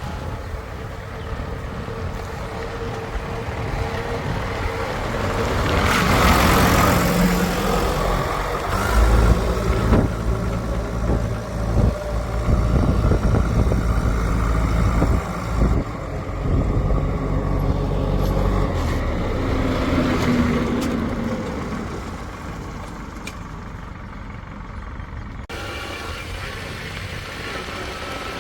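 Diesel engine of heavy earthmoving machinery running and revving under load, loudest through the middle. A hissing burst comes about six seconds in.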